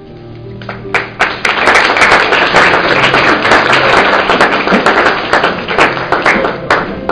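Audience applauding, starting about a second in and dying away near the end, over quiet background music.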